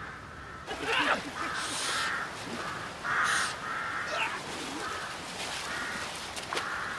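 Crows cawing repeatedly, harsh calls following one another.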